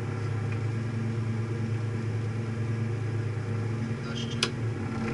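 Opel Astra GSi rally car's engine idling steadily, heard from inside the stripped cabin, with a single sharp click about four seconds in.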